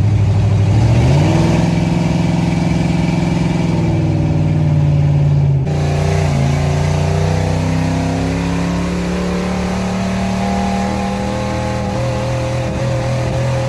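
Car engine pulling under acceleration. Its pitch rises about a second in and holds, drops suddenly about five and a half seconds in, then climbs slowly again.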